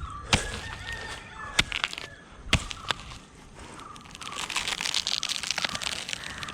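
Sharp chopping knocks at a coconut palm's crown, four strikes in the first three seconds, then a few seconds of dry crackling and rustling.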